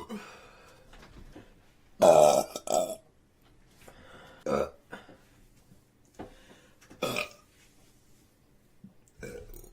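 A woman burping: one long, loud, deep burp about two seconds in, then two shorter burps later on.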